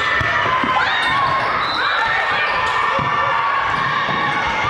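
Indoor volleyball play: the ball thumping off players' hands and arms several times, with sneakers squeaking on the hardwood court.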